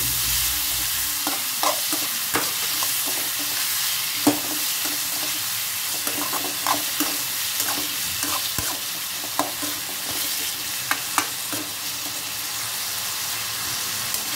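Chopped onion and tomato sizzling in oil in an aluminium kadai, with a metal spatula scraping and knocking against the pan at irregular intervals as they are stirred; the sharpest knock comes about four seconds in.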